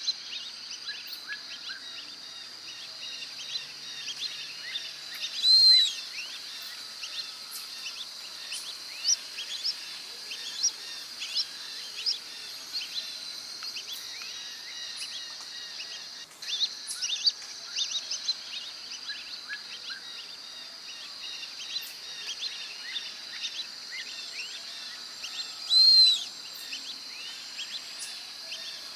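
Brazilian teal giving a loud, arched, high whistle twice, about six seconds in and again near the end. Under it run a steady high hiss and many short chirps from other birds.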